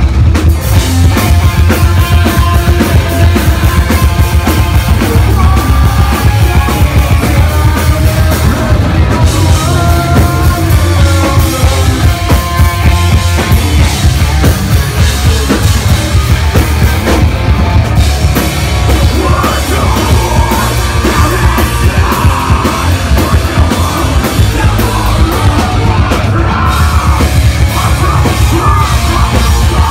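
A live rock band playing loud: distorted electric guitar, bass guitar and a drum kit, heard close from the front of the stage.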